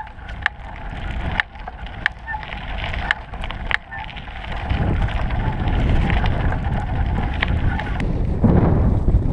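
Mountain bike rolling over gravel: the bike's parts rattle and click sharply at irregular moments at first, then tyre and wind rumble builds and grows louder as the bike picks up speed from about halfway.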